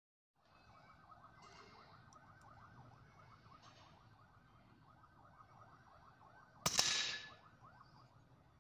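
A single shot from a P15 PCP air rifle, about two-thirds of the way in: a sharp crack with a short ringing tail. Under it runs a constant fast warbling chirp.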